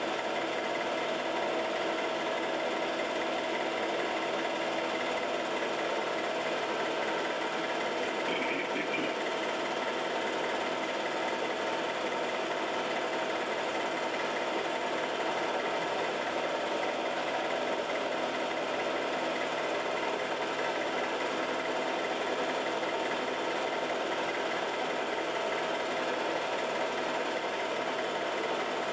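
Film projector running: a steady mechanical whir and clatter of the motor and film transport, with a constant hum made of several steady tones.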